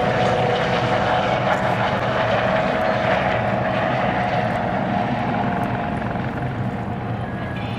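AS365N3 Dauphin twin-turbine helicopter flying, a steady engine and rotor noise with a constant whine, easing slightly near the end.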